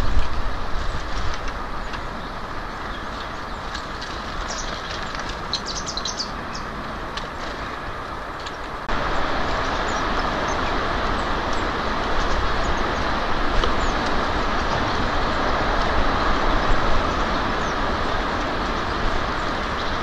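Steady outdoor background rumble and hiss from the feeder's microphone, with a few short, high bird chirps about five to seven seconds in. The noise steps up louder about nine seconds in and stays steady.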